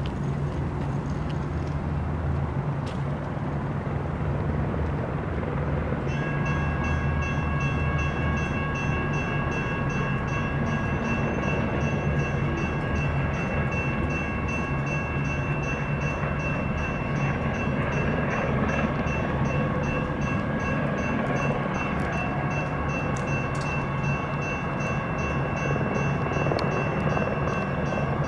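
Grade-crossing electronic bells (General Signals Type 1 and Type 2) start ringing about six seconds in and keep up a rapid, steady ring, warning of an approaching light-rail train, over a steady low rumble.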